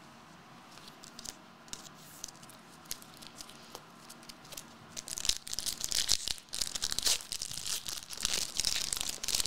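Foil trading-card pack wrapper being handled with a few light clicks, then torn open and crinkled from about halfway through.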